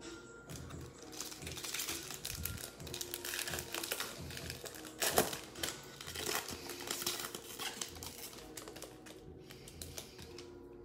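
Foil wrapper of a Panini Mosaic football card pack crinkling as it is torn open and the cards are pulled out, with one sharp, loud crackle about five seconds in.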